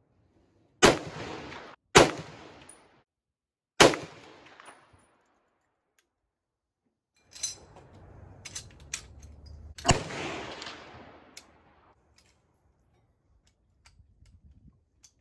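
Three rifle shots from an M1 Garand firing .30-06 M2 ball, a second or two apart, each with a ringing tail. After a pause come light metallic clicks of the rifle being handled, and one more loud shot about ten seconds in.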